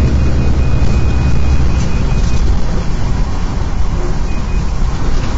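Steady road noise inside a car driving on a wet highway: a deep rumble with a hiss of tyres and wind over it. The deepest part of the rumble eases a little about halfway through.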